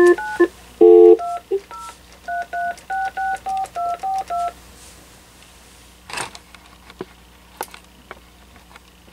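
Touch-tone (DTMF) dialing heard through the speakerphone of a Panasonic KX-TG6641 cordless phone base unit: the dial tone cuts off, and about a second in a string of about ten key tones follows in quick succession over some three seconds. Faint clicks follow while the call connects.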